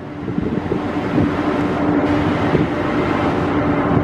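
Wind buffeting the microphone at sea, over a steady low ship's engine hum.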